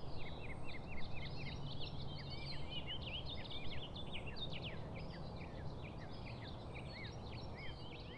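Many small birds chirping at once, their short sweeping calls overlapping, over a steady low background noise that eases off slightly toward the end.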